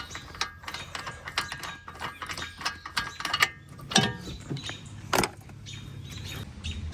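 Ratchet wrench clicking in short, irregular runs as a spark plug is threaded back into an ATV engine.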